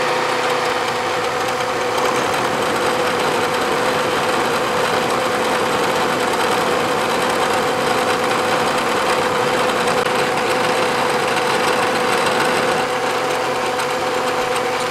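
Vertical milling machine running with a solid-carbide 90-degree drill mill taking a light finishing pass along a V groove, a steady whine over the cutting noise.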